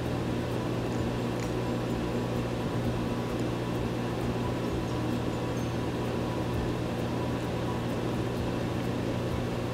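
Frigidaire stand mixer running steadily on medium speed, its flat paddle beating egg-yolk cake batter in a stainless steel bowl: an even motor hum.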